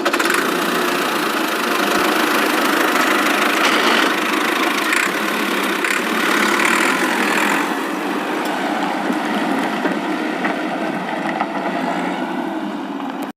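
Tractor engine running steadily, a little louder for the first eight seconds or so and then easing slightly, before it stops abruptly.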